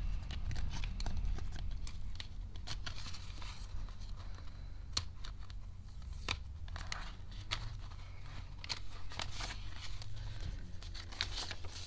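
Paper banknotes rustling and a clear plastic binder envelope crinkling as bills are counted and slipped inside, with a few sharp clicks.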